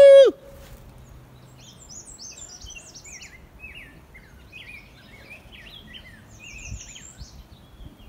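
A man's loud howled shout cuts off just after the start. Then songbirds sing: many quick, short chirped notes, some higher and some lower, overlapping, until near the end.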